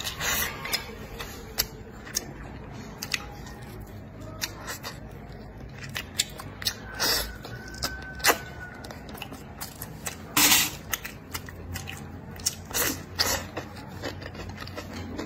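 Close-miked eating with chopsticks: chewing and lip-smacking on mouthfuls of rice and pork belly, with loud slurps of food from the bowl's rim and irregular sharp clicks.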